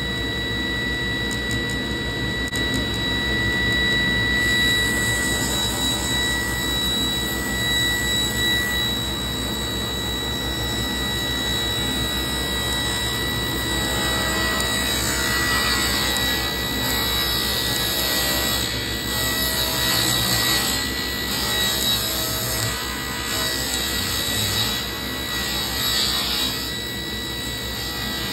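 Table saw running while a thin strip of trim is ripped off a board. A steady high whine at first, then from about halfway the rasp of the blade cutting the wood comes and goes.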